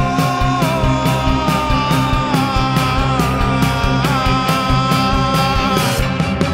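A band playing live: drums keep a steady beat of about four hits a second under a long, held lead melody that slides from note to note.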